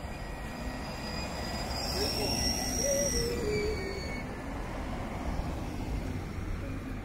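Cars driving slowly past one after another, engine and tyre noise swelling as one goes by close about two to three seconds in. A high steady whistling tone sounds over it at the same moment.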